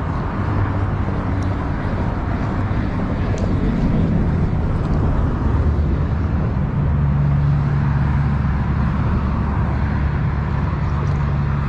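Steady road traffic noise, with a deeper vehicle engine hum building about four seconds in and holding for several seconds.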